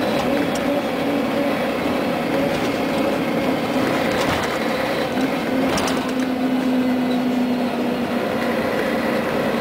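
Interior sound of a Scania CN113CLL city bus on the move: the engine and drivetrain drone steadily over road noise. A whine holds from about five seconds in and sinks slightly in pitch. There is a brief rattle about six seconds in.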